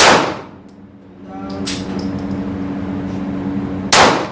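Two gunshots about four seconds apart, each a sharp crack with a brief echoing tail. A lighter metallic click comes between them, over a steady low hum.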